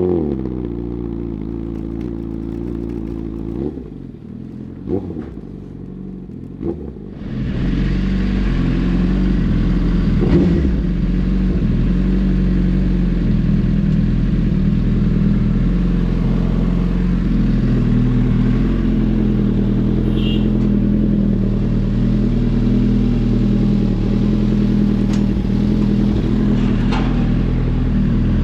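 Suzuki GSX-R1000R inline-four through an M4 full exhaust system: a few short throttle blips over a lower engine note, then from about seven seconds in a louder, steady engine note.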